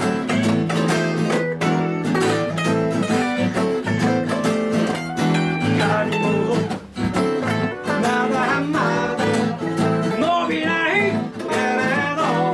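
Live band of electric and acoustic guitars playing a song, with steady chords underneath and wavering higher notes over them from about halfway through.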